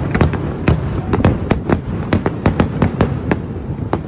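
Fireworks display: a rapid string of sharp bangs, about five a second, over a continuous low rumble.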